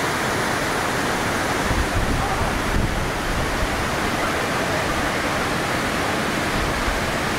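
Waterfall swollen by heavy rain: a steady, even rush of falling water.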